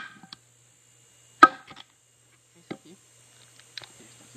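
A hard strike of a metal tool on a wooden stump about a second and a half in, with a short metallic ring, followed by a couple of fainter knocks.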